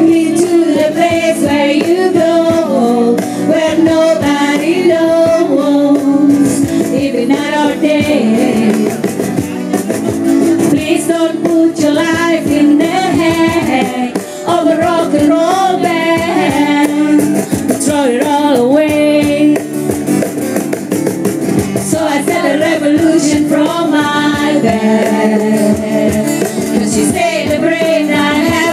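A song: a voice singing over guitar accompaniment.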